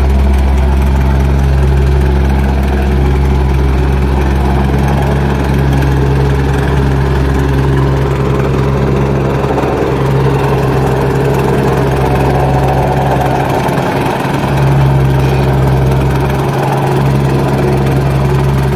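A vibratory plate compactor's small engine running steadily as the vibrating plate compacts a layer of backfill soil.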